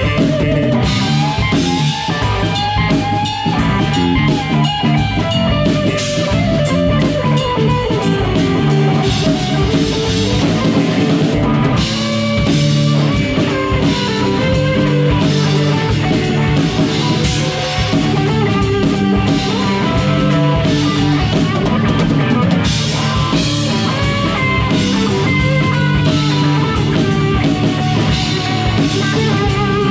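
Live band playing a rock song, drum kit and guitars together at a steady level.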